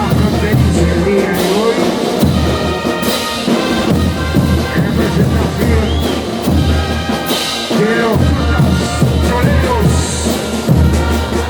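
Bolivian brass band playing a carnival dance tune: horns carrying the melody over a steady bass drum beat.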